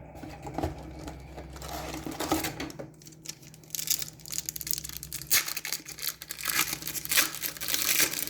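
A hockey card pack's wrapper being torn open and crinkled in the hands: irregular crackly rustling that grows busier from about halfway through.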